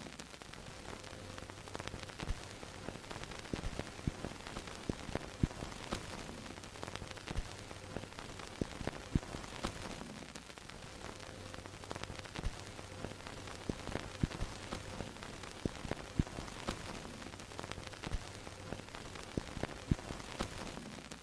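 Vintage film projector soundtrack: a steady hiss of old film with irregular crackles and pops from dust and scratches, over a faint low projector hum.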